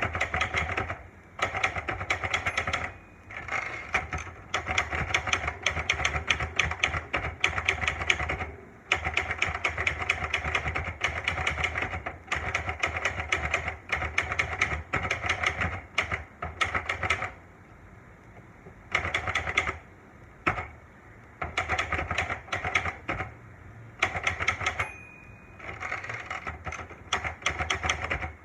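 Olivetti Lettera 92 manual portable typewriter being typed on: fast runs of keystrokes lasting several seconds, broken by short pauses.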